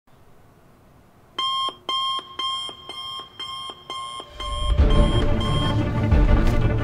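Digital alarm clock beeping, about two short beeps a second, starting about a second and a half in. Music swells in underneath about four seconds in and becomes the loudest sound as the beeping stops near the end.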